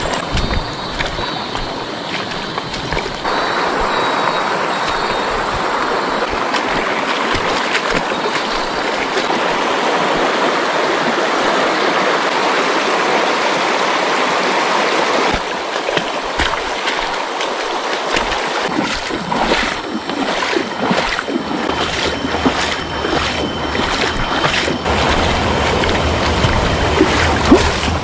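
Shallow rocky stream rushing over stones, a steady loud watery hiss. In the last third it gives way to irregular crackling and rustling through tall grass, over a low rumble.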